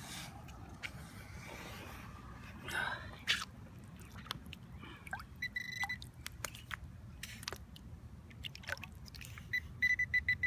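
Digging and scraping in wet, waterlogged sand, with squelches and scattered clicks. A metal detector gives a short high beep about halfway through, then near the end a rapid run of high beeps, about five a second, signalling a metal target still buried in the hole.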